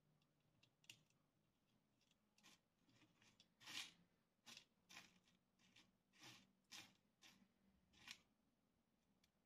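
Small plastic rhinestones clicking and rattling as they are picked through in a plastic compartment box: faint, irregular clicks, the loudest a little under four seconds in.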